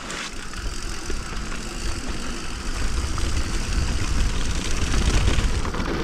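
Wind buffeting a mountain-biker's camera microphone, with the hiss and rattle of mountain-bike tyres rolling over a dirt trail. The rush builds steadily louder as the bike picks up speed downhill.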